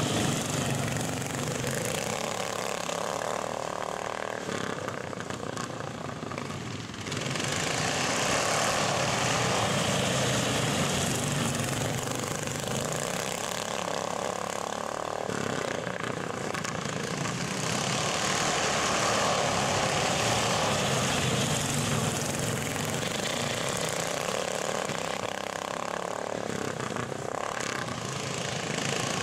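Small engines of racing garden tractors running hard and droning steadily, growing louder and fainter as the tractors circle the dirt oval.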